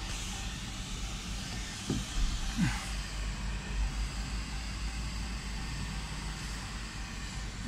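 Steady low rumble of an idling vehicle engine, with two short falling sounds about two seconds in.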